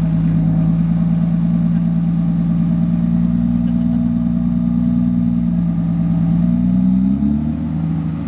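Modified Porsche 996 Twin Turbo's twin-turbocharged flat-six idling steadily. About seven seconds in, the engine note rises as the car begins to move off.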